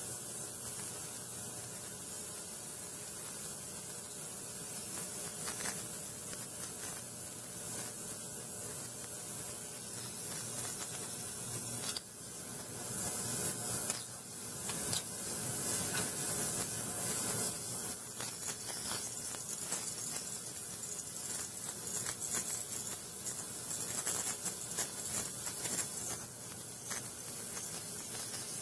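Harbor Freight ultrasonic cleaner running, its hot soapy bath cleaning the diamond face of a sharpening stone dipped in it: a steady high hiss. It gets louder and more uneven about two-thirds of the way through.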